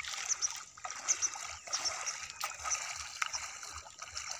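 Bare feet wading through shallow river water, with irregular splashes and sloshing at each step.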